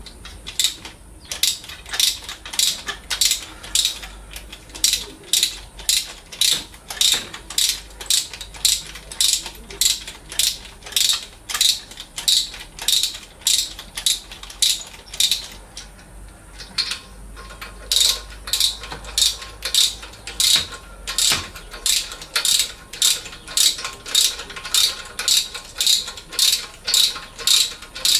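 Hand socket ratchet being swung back and forth, a rasping click on each return stroke at about two strokes a second, as a fastener is undone during engine disassembly. The strokes pause briefly a little past halfway, then carry on.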